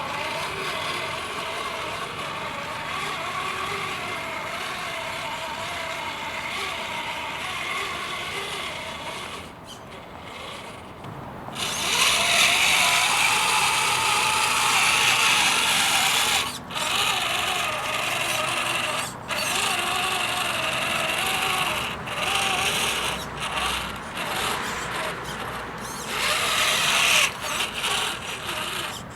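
Electric motor and gearbox of a 3D-printed RC crawler whining as it drives. It is steady at first, then louder from about twelve seconds in, with brief stops and restarts as the throttle is worked.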